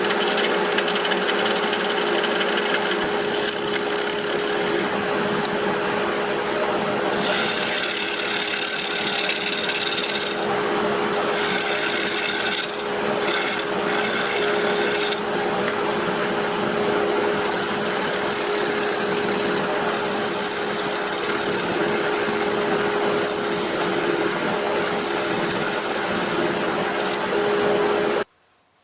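Wood lathe spinning a burl while a turning tool cuts into it to part the piece off the jam chuck: a steady motor hum under a scraping, rasping cut that changes as the tool moves. It stops suddenly near the end.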